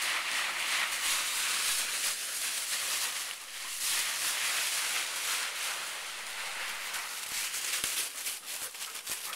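Deep, dry leaf litter rustling and crunching as a chocolate Labrador retriever plows and noses through it, with sharper, quicker crunches near the end.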